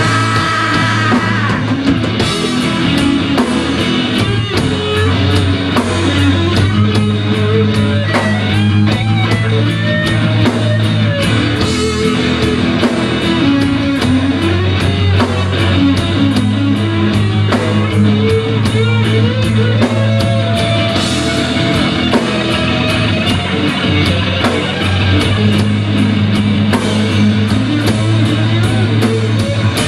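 Live rock band playing an instrumental passage without vocals: electric and acoustic guitars over a drum kit, with a melody line of sliding, bending notes.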